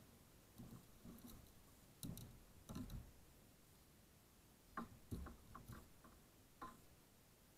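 Faint, irregular clicks and light knocks of fishing tackle and the kayak being handled as a hooked bass is brought aboard, a few close together around two to three seconds in and again around five seconds in.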